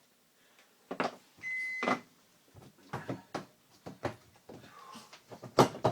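Plastic filter parts in the bottom of a GE dishwasher being unclipped and lifted out: a series of plastic clicks and knocks, with a short squeak about a second and a half in and the loudest knocks near the end.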